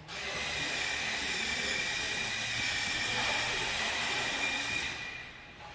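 Steady hissing machine noise with a faint high whine, starting suddenly and fading away near the end.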